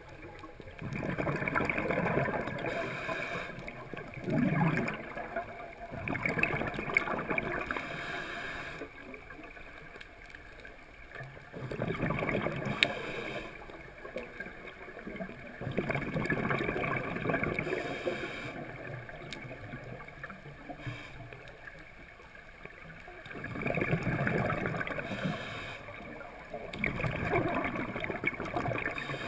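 Scuba diver's regulator breathing underwater: exhaled bubbles gurgling and rumbling in spells that swell and fade every few seconds, with quieter gaps between breaths.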